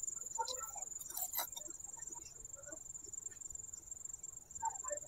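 Small taps and clicks as a plastic bottle is handled and cooking oil is poured into a miniature clay kadai, over a steady high-pitched insect trill.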